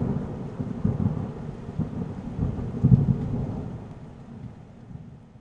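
Deep rumbling intro sound effect with a couple of louder swells, about a second in and near three seconds, dying away gradually toward the end.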